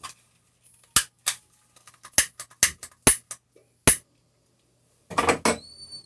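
A run of sharp clicks and knocks, about a dozen in the first four seconds, then a short hiss a little after five seconds that ends in a faint high whistle.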